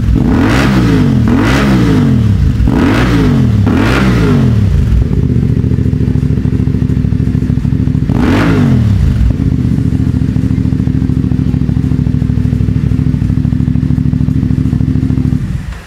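CF Moto 450MT's parallel-twin engine through a ProSpeed SharkBlack slip-on exhaust with the dB killer removed, giving a more open, much fiercer note. It is blipped in five quick revs, then settles into a steady run with one more rev about eight seconds in, and is shut off near the end.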